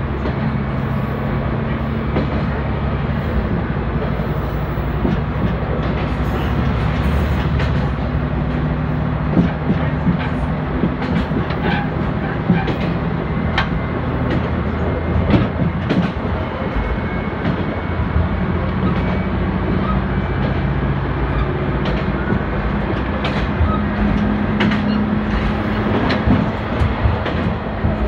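Moka Railway diesel railcar running along the line: its engine holds a steady low drone, and the wheels click sharply over rail joints every second or two.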